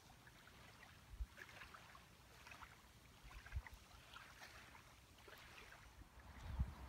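Small waves lapping faintly on a gravel lakeshore: a few soft splashes over near silence.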